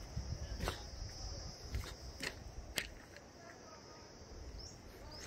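Outdoor ambience over flood debris: an uneven low rumble, a steady high hiss, and four sharp clicks in the first three seconds. Short bird chirps begin near the end.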